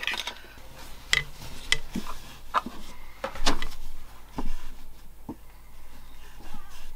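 Handling noise as hands smooth cross-stitch fabric and handle the pieces of a plastic Q-Snap frame: irregular light knocks and taps, about eight in all, with soft rubbing between them.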